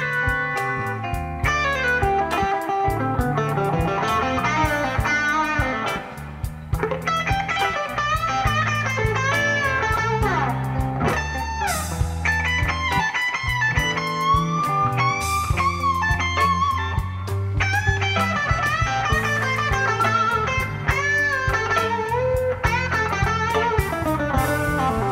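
Electric blues band playing an instrumental passage: an electric guitar leads with bent notes over bass and drums.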